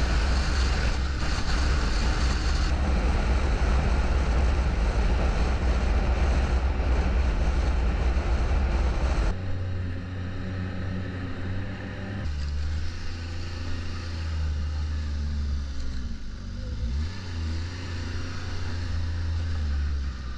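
Snowmobile engine running at trail speed under a steady rush of noise; about nine seconds in it is throttled back to a quieter, lower note, and its pitch then rises and falls as the sled slows and picks up again.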